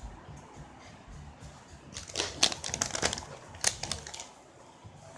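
Sharp crinkling and crackling in a dense flurry from about two to four seconds in, from handling a bag of Doritos Blaze tortilla chips.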